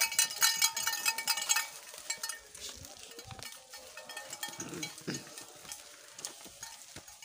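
A bright jingling clatter for about the first second and a half, then soft scuffing footsteps and rustling on a stone path.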